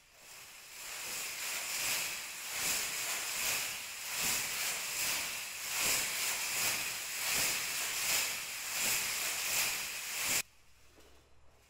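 Metallic fringe and beads on a dancer's costume shaking and shimmering, pulsing to an even beat of about four shakes every three seconds. It cuts off suddenly near the end.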